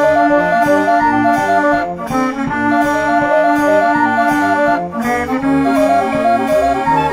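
Background music: an upbeat tune with held chords over a steady bass beat, in an accordion- or brass-like sound.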